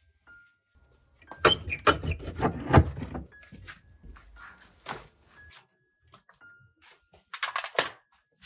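Rusty metal barrel bolt on an old wooden door rattled and slid open, a burst of metallic clacks and scrapes starting about a second in. More clanks and knocks follow near the end as the door is pushed open.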